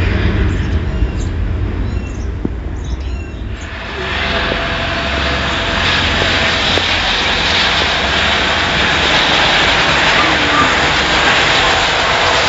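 A formation of light military helicopters flying overhead: a low rumble at first, then about four seconds in the rotor and turbine noise swells up and stays loud and steady.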